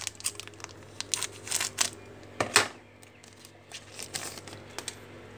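A foil trading-card pack crinkling and being torn open by hand, with rustling as the cards are slid out. It comes in short crackly bursts, loudest about two and a half seconds in.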